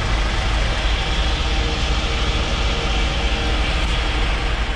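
Steady, loud mechanical running noise with a deep, unsteady rumble underneath.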